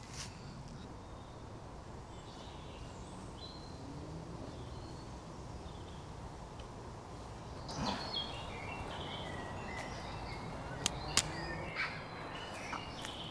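Outdoor woodland ambience: a steady low background noise, with birds calling from about eight seconds in and two sharp snaps a little later.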